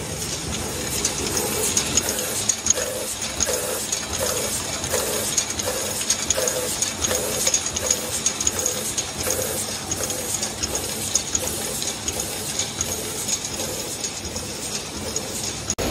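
Aluminium aerosol can production line machinery running: steady mechanical noise with rapid metallic clicking and clatter, a faint high whine, and a soft pulse repeating about three times every two seconds.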